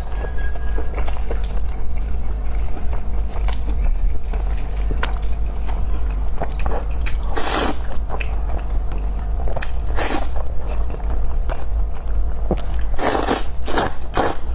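Close-miked eating: repeated crunchy bites and chewing, with a few longer, louder bursts about seven and a half, ten and thirteen seconds in, over a steady low hum.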